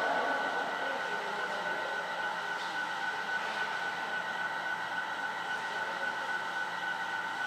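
A steady machine hum with several steady whining tones over a low hiss, unchanging throughout.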